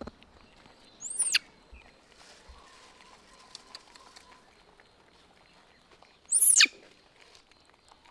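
Baby macaque giving two short, high-pitched squealing calls that sweep down in pitch, about five seconds apart.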